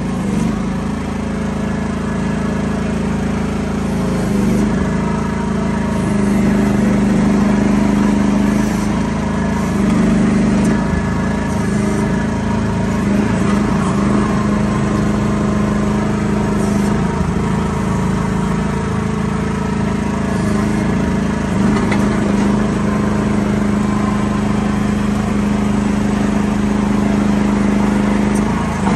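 Gasoline Briggs & Stratton engine of an AGT Industrial QH-12 mini excavator running steadily while its hydraulic controls are worked. The engine note grows stronger for several stretches as the machine is operated.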